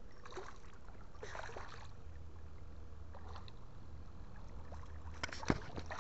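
Hooked smallmouth bass splashing at the surface as it is brought in to the rocky shore: several brief splashes, the sharpest and loudest about five and a half seconds in, over a steady low rumble.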